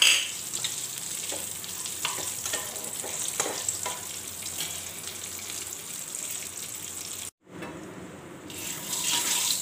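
Whole spices and bay leaves sizzling in hot mustard oil in a wok, a steady high hiss, while a spatula scrapes and taps the pan as they are stirred. The sizzle cuts out abruptly for a moment about seven seconds in, then comes back.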